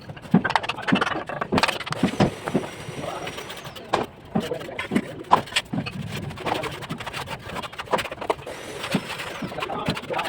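Bricklaying work: irregular sharp taps and knocks of a trowel against bricks and mortar, several a second, with voices in the background.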